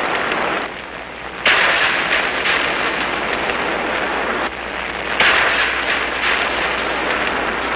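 Wooden match heads flaring alight: two sudden hissing flares, about a second and a half in and again about five seconds in. Each settles into a crackling burn.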